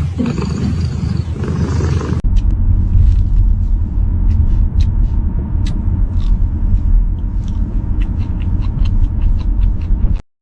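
A loud, steady low rumble; it changes abruptly about two seconds in, then carries on with scattered faint clicks above it.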